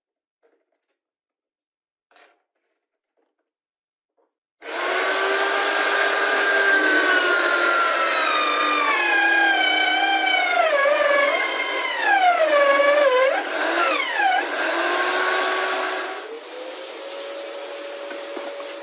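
Drill press boring a step drill bit through an MDF disc. The motor cuts in about five seconds in, and its whine sags in pitch again and again as the bit bites, then recovers. Near the end the hole is through and the motor spins quieter and steadier before stopping.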